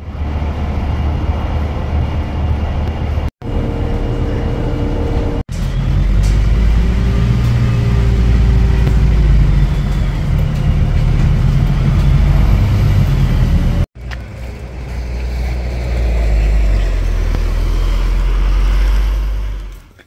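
Steady, loud low rumble of a vehicle on the move, in several short clips joined together, with abrupt breaks about 3, 5 and 14 seconds in.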